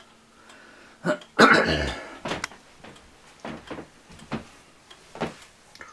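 A person coughs once, loudly, about a second and a half in. It is followed by a few light, irregularly spaced clicks and knocks.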